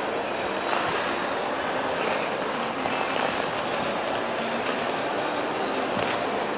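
Ice skate blades gliding and scraping on the ice of a crowded public rink: a steady rushing hiss with scattered scrapes from many skaters, including the skates of the one carrying the microphone.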